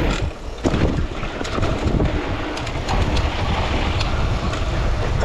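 Enduro dirt bike being ridden over a rough trail: its engine running under heavy wind buffeting on the microphone, with a sharp knock from the bike a little under a second in.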